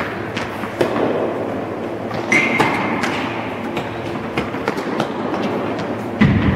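Tennis balls struck by rackets and bouncing on an indoor court: irregular sharp pops and thuds over a steady din of a large hall. A brief high squeak comes about two seconds in, and a heavier thud near the end.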